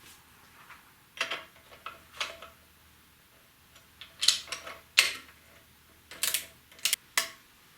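Hand tools and metal motorcycle parts clicking and clinking against each other while the headlight mount on a Harley-Davidson Fat Bob is being worked on. The clicks are irregular, about a dozen of them, several with a brief metallic ring, and they come thicker after the middle.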